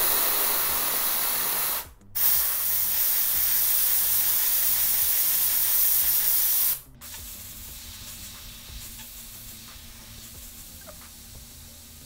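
Compressed-air duster can spraying a steady hissing jet. It cuts out briefly about two seconds in, resumes, then drops abruptly to a much quieter hiss about seven seconds in.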